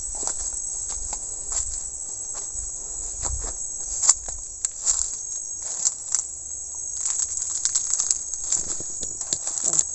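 Steady high-pitched chorus of insects in the forest, with irregular crackles and snaps of footsteps through undergrowth over it.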